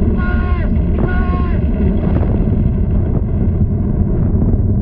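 Deep, continuous rumbling of an erupting volcano, a cartoon sound effect. Two brief pitched tones sound about a second apart near the start, each bending down as it ends.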